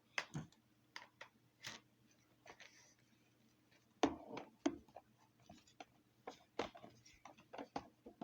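Irregular plastic clicks and knocks from handling the parts of a Hyundai H-VCC03 vacuum cleaner, with a louder clatter about four seconds in.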